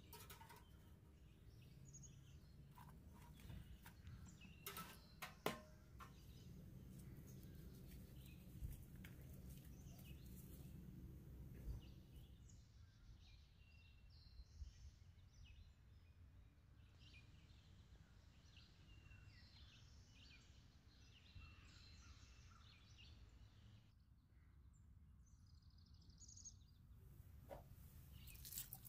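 Near silence: a faint low room hum with a few soft clicks, and a scatter of faint high chirps through the middle.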